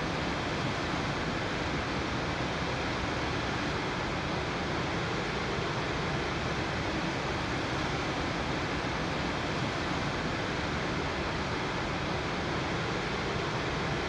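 Steady, unchanging rushing noise with a faint high steady tone running through it.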